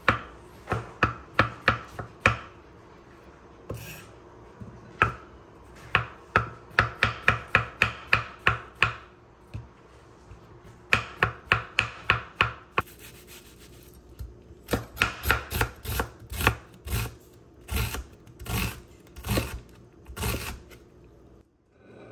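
Chef's knife slicing button mushrooms on a bamboo cutting board: quick runs of sharp knife strikes on the board, several a second, broken by short pauses.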